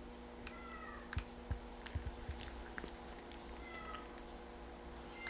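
A few faint, short, high-pitched cat mews, with several soft clicks between them, over a steady low electrical hum.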